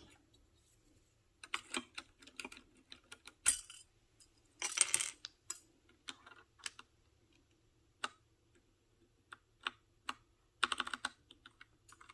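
Plastic keycaps clicking on a Freewrite keyboard as keys are pressed and caps fitted, in irregular clusters of quick clicks with short pauses between them.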